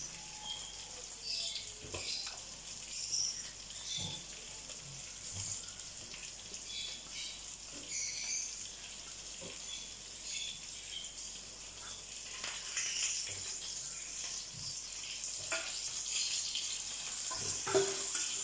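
Tamarind fish curry bubbling at a boil in a clay pot, a steady fizz with many small pops, as pieces of sea catfish are dropped in, with a few soft knocks.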